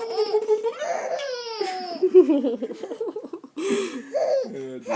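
A baby laughing and giggling in short bursts, after a drawn-out, gliding silly vocal noise in the first two seconds.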